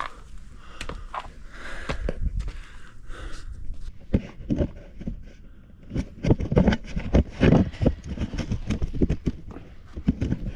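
Boots scuffing and scraping on rock and gear knocking while scrambling up a rocky slope, a run of quick scuffs and knocks that gets heavier and louder in the second half.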